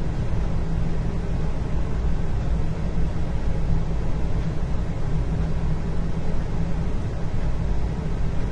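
Indoor ambience: a steady low rumble and hum, even throughout, with no distinct events.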